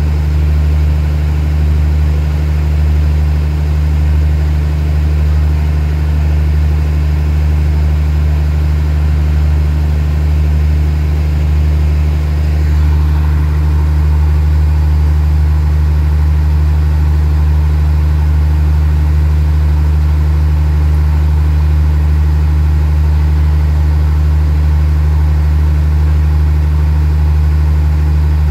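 Diesel engine of a stopped passenger train idling with a steady low hum.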